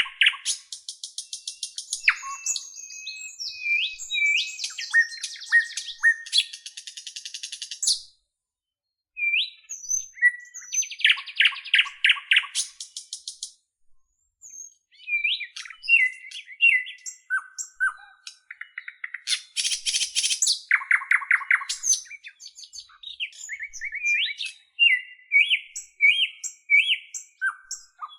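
Birdsong: a varied string of high chirps, short gliding whistles and fast trills of rapidly repeated notes, broken twice by brief silences.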